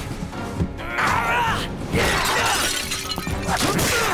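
Action background music with window glass shattering during a fight.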